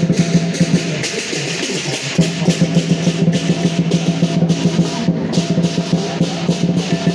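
Lion dance drumming: a big drum beaten in a fast, continuous roll with sharp accented hits over it, breaking off briefly about a second in before the roll resumes.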